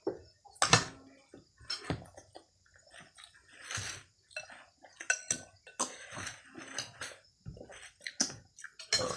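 Eating by hand from a plate of rice: scattered clinks and knocks of the plate and dishes on the table, mixed with chewing.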